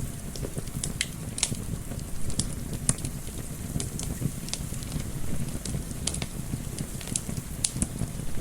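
Wood fire crackling with irregular sharp pops over a steady low rumble, mixed with a soft wind.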